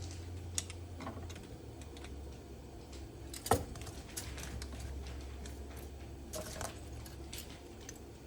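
Light clicks and scrapes of an engine oil dipstick being drawn from and pushed back into its tube, with one sharper click about three and a half seconds in, over a steady low hum.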